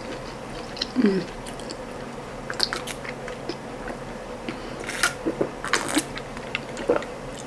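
Close-up mouth sounds of a person chewing ndole with boiled ripe plantain: scattered soft clicks and smacks, with a short hum about a second in.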